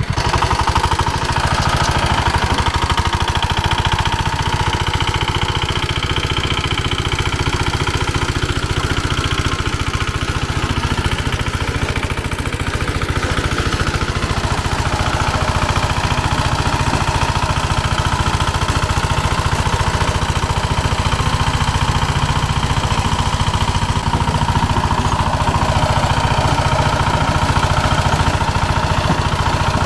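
Walk-behind tractor's engine running steadily under heavy load as its rotary tiller churns hard, dry soil on a second pass.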